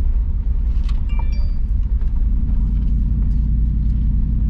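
Steady low rumble of a vehicle rolling slowly along a gravel road, heard from inside the cab, with small scattered ticks from the tyres on the gravel. A brief high chirp sounds about a second in.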